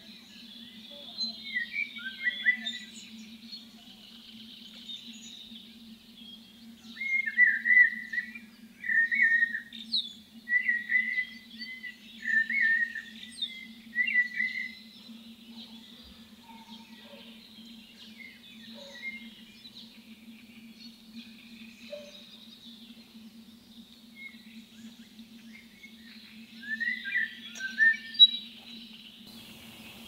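Several birds singing: one bird repeats short, loud song phrases every second or two, in a run through the middle and again near the end, over continuous softer chattering from other birds.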